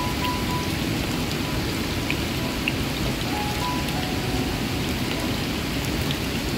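Steady rain falling, mixed with the sizzle of banana fritters frying in hot oil in a pan on a portable gas stove.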